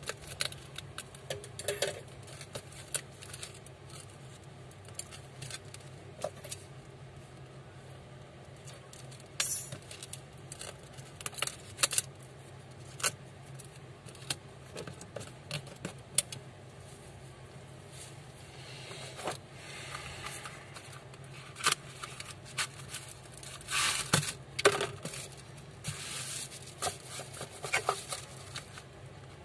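Irregular small clicks, taps and scrapes of a smartphone's display frame and small parts being handled and pressed on a workbench, over a steady low hum.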